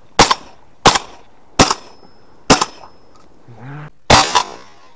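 Duck hunters' shotguns firing in quick succession: about six sharp shots in four seconds, less than a second apart. The last two come close together and are the loudest.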